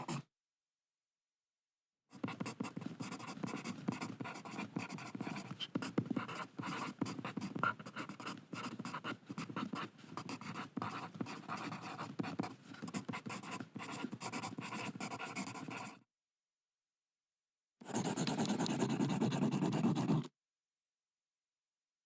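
Pencil scribbling on paper: a long run of quick, irregular scratchy strokes starting about two seconds in, then after a silent pause a shorter burst of faster, continuous back-and-forth scribbling near the end.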